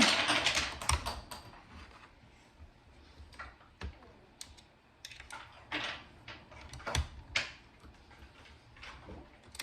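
Scattered clicks and knocks of wooden table parts and screw hardware being handled while a table leg is screwed on and tightened, after a brief rustle about the first second.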